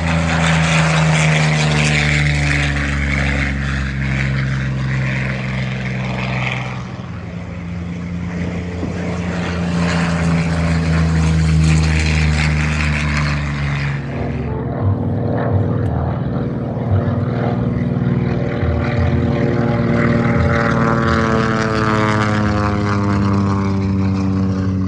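Piston-engine WWII fighters, a P-47 Thunderbolt and a P-40 Kittyhawk, flying past in turn: a loud, deep propeller and engine drone whose pitch slides as each plane passes, changing in tone about fourteen seconds in.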